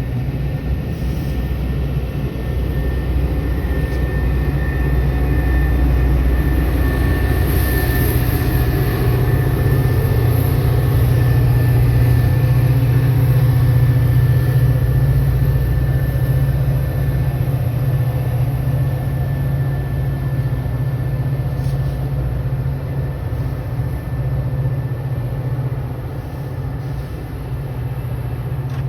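Metra diesel passenger train running as it hauls a disabled train past: a steady low rumble that swells to its loudest around the middle and eases off near the end, with a faint steady high whine above it.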